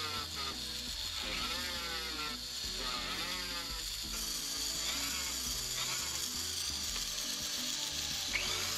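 Rotary tool spinning a small sanding bit against a gold watch case back: a steady high whine with a gritty grinding sound. Background music plays underneath.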